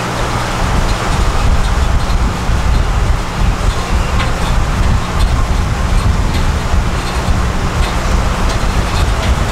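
A boat's engine running steadily under way, a low steady hum under a broad rushing noise, with wind buffeting the microphone.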